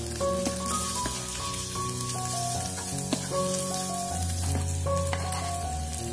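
Chopped tomatoes, chilies and shallots sizzling as they are sautéed in a small electric pan, with a wooden spatula stirring and clicking against the pan now and then. Background music with held notes plays over it.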